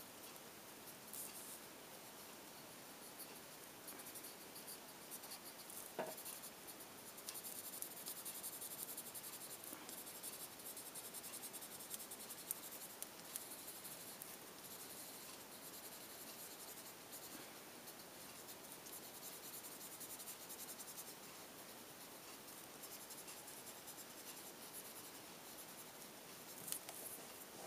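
Faint scratchy rubbing of a paper blending stump, damp with mineral spirits, worked in small strokes over colored pencil on card to blend the greens.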